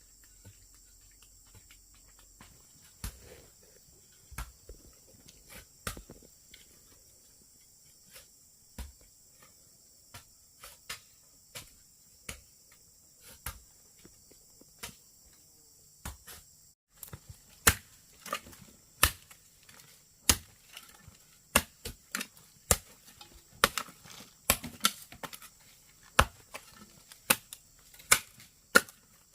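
Irregular sharp knocks of a hand tool striking wood, about one a second at first, then louder and quicker, near two a second, from about seventeen seconds in.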